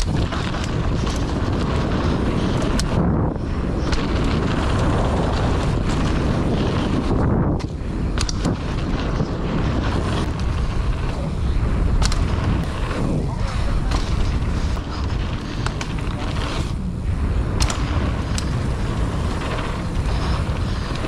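Mountain bike ridden fast down a dirt trail: heavy wind buffeting on the action camera's microphone over the rumble of tyres on the ground, with sharp clicks and rattles from the bike over bumps.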